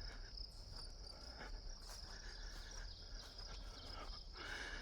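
Faint, steady high-pitched insect trill.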